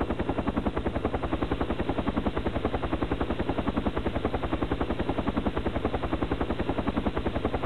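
Mi-8 helicopter in flight: the main rotor beats in a fast, even, steady thumping.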